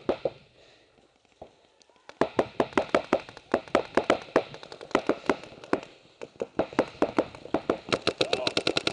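Paintball markers firing rapid strings of shots. After a short lull, several shots a second start about two seconds in, and a faster, louder string comes near the end.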